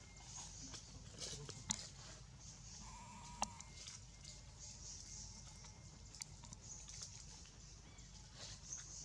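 Baby long-tailed macaque giving a short wavering whimper about three seconds in, the cry of an infant begging to nurse. A steady high hiss and a few sharp clicks run under it.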